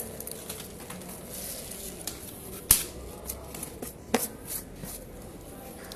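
Protective plastic wrapping being peeled and crinkled off a new electric scooter: scattered rustling crackles, with two sharper snaps about two and a half and four seconds in.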